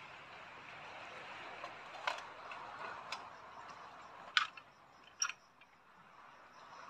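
Spoon and steel bowl clinking: several sharp metallic clicks, the two loudest about four and five seconds in with a brief ring, over a steady background hiss.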